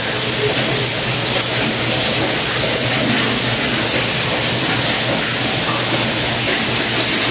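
Mondial 4-litre air fryer running as it preheats: its fan blowing a steady, even hiss with a faint low hum underneath.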